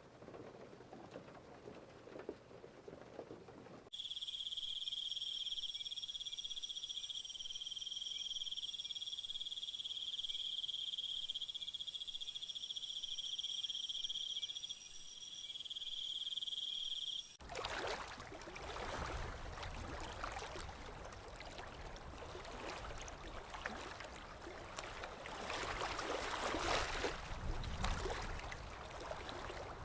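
Rain pattering fades out. From about four seconds in, a night chorus of crickets and other insects gives steady high trills for about thirteen seconds. It cuts to water lapping with wind rushing, which runs to the end.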